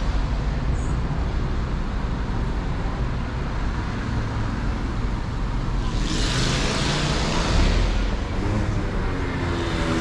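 Car driving in city traffic: a steady low rumble of engine and road, with a louder hiss that swells and fades about six to eight seconds in, as of a vehicle passing close by.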